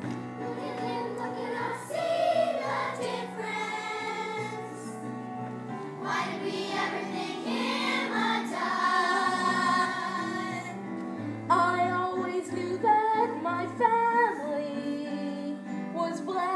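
Stage-musical number: a group of voices singing a show tune over instrumental accompaniment with held bass notes, the sung phrases growing shorter and louder near the end.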